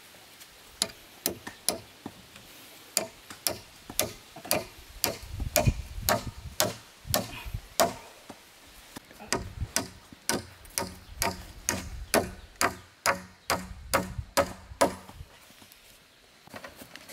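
A rapid, irregular series of sharp knocks, about two to three a second, some with a dull thud beneath them, stopping about fifteen seconds in.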